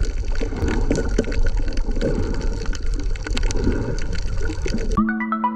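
Underwater sound heard through a camera housing: a steady muffled rush of water with many sharp clicks and crackles. About five seconds in, the sound cuts off abruptly to chiming electronic jingle notes.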